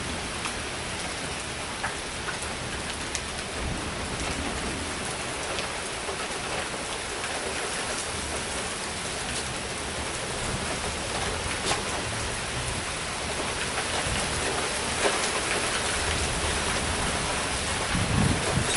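Steady heavy rain falling in a thunderstorm, with scattered sharp drop ticks, growing slightly louder toward the end. A short low rumble comes near the end.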